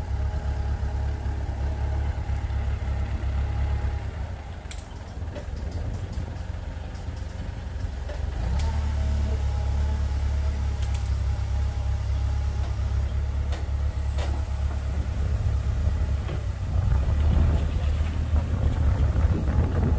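Forklift engine running steadily while the forklift lowers and sets down a pickup truck. The engine eases off about four seconds in and picks up again a few seconds later. There are a few light metallic clanks around then and again later.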